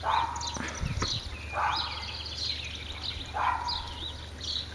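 A dog barking three times, about a second and a half apart, with birds chirping behind it.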